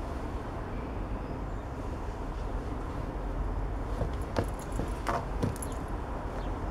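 Steady low outdoor rumble. About four seconds in come a few sharp taps and knocks of leather loafers on tiled pavement as the feet settle into them and step.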